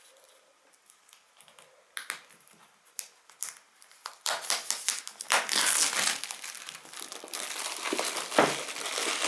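Clear plastic wrap being pulled off a cardboard box and crinkled. A few light handling clicks at first, then continuous loud crinkling from about four seconds in.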